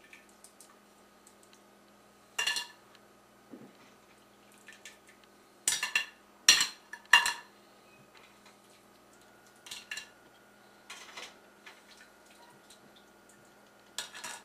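A metal utensil clinking against a stainless steel stock pot and a plate as boiled crawfish are lifted out and set on the plate: a scattering of sharp, separate clinks, the loudest three coming close together about six to seven seconds in, over a faint steady hum.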